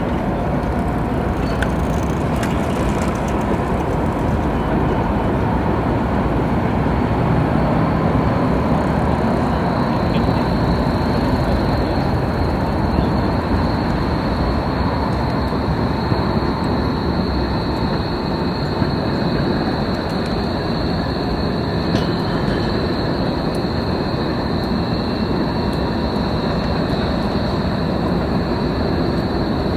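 City-square ambience dominated by the steady rumble of a rail vehicle running through, with a thin high whine coming in about a third of the way in and holding.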